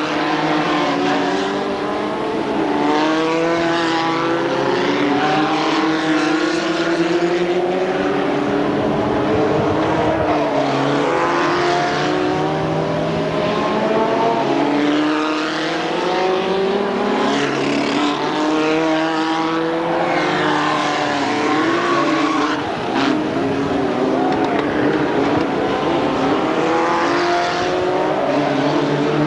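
Engines of several racing stock cars running hard, their pitches rising and falling over one another as the cars accelerate, lift and pass one after another.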